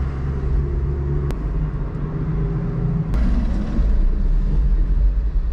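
2021 Jeep Wrangler Willys driving, its engine running steadily under tyre and road noise. The engine note shifts suddenly about a second in and again about three seconds in.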